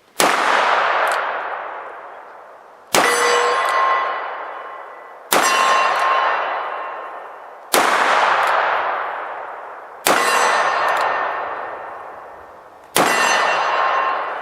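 Smith & Wesson Model 610 revolver firing 10mm Auto, six shots about two to three seconds apart. Each shot is followed by a long ringing clang of a steel plate target being hit.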